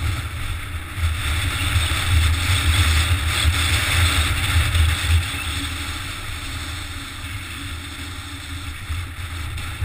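Mountain bike riding down a rough gravel track: a steady low rumble of wind buffeting the camera's microphone over the hiss and rattle of tyres on loose stones. Loudest for about the first five seconds, then easing off.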